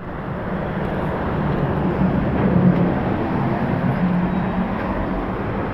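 Street traffic noise: a vehicle engine's steady low hum over road noise.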